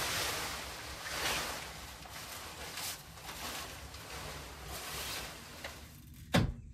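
Car cover rustling and swishing in uneven strokes as it is dragged off a car, with one sharp thump near the end.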